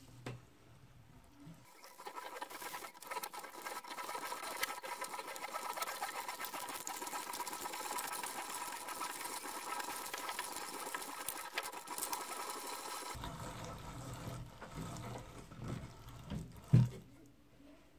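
Antique hand-cranked meat grinder turning steadily, its auger forcing raw chicken through the cutting plate with a rapid, even clicking and squishing. The grinding stops about 13 seconds in, followed by quieter low knocking and one sharp thump near the end.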